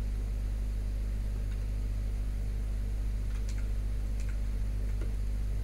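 Steady low electrical hum, with a few faint ticks about halfway through.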